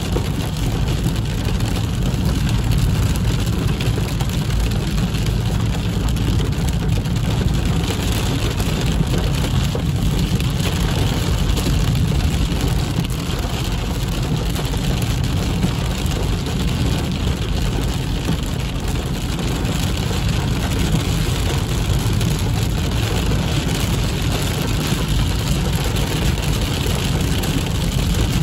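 Heavy rain falling on a car's roof and windshield, heard from inside the cabin, over a steady low rumble of tyres on the wet road and the engine as the car drives.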